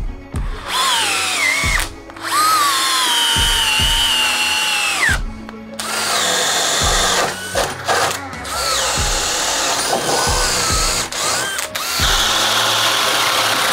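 DeWalt 20V cordless hammer drill driving long screws into wood, its motor whine dropping in pitch as each screw sinks in, in three short runs with brief stops between. From about six seconds in, the drill bores large holes in wood with a rougher, noisier sound, stopping briefly a few times.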